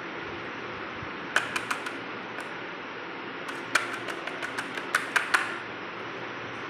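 Light, sharp clicks and taps from a small plastic box being handled, a short run of about five about a second and a half in, then a quicker run of about a dozen between about three and a half and five and a half seconds in, over a steady low hiss.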